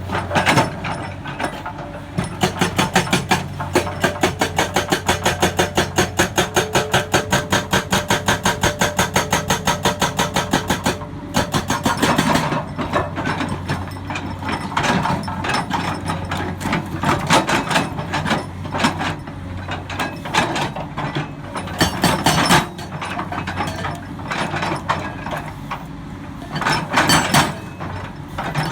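Hydraulic rock breaker on a Komatsu excavator hammering rock in rapid, even blows, several a second, for about the first eleven seconds, then in shorter irregular runs with pauses. The excavator's engine runs steadily underneath.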